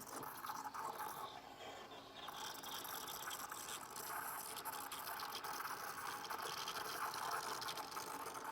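Swan SK22110BN retro espresso machine at work: a steady hiss with liquid sounds and fine rapid crackling.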